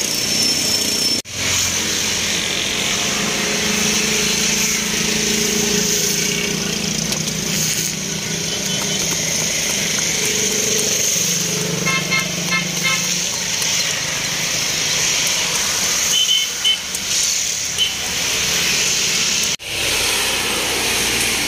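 Steady street traffic noise, with a vehicle horn beeping in a quick run of short toots about twelve seconds in.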